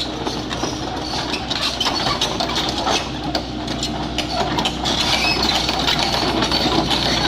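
Small excavator's diesel engine running steadily, with irregular metallic clanking and clatter as the machine works.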